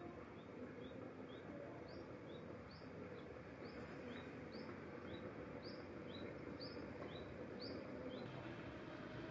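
A small bird calling a short, high, falling chirp over and over, about twice a second, over a steady background hiss. The chirps stop near the end.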